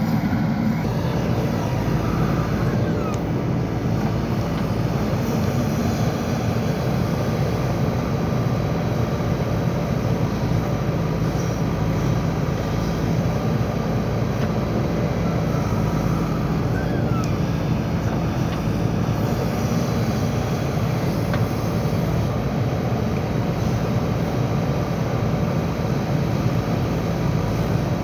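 JCB backhoe loader's diesel engine running steadily at working revs, with no break.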